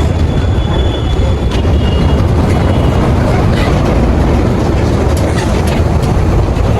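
Steady rumble and rush of a vehicle moving along a highway: road and wind noise, loud and even throughout.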